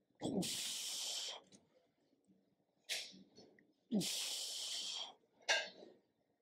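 A man breathing heavily through the effort of a weighted adductor stretch with a kettlebell. There are two long, hissing breaths, each followed about a second and a half later by a short, sharp one.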